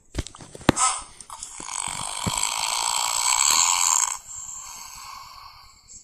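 A man snoring in his sleep: after a couple of sharp clicks, one long raspy breath lasting about three seconds, which then falls away to a quieter breath.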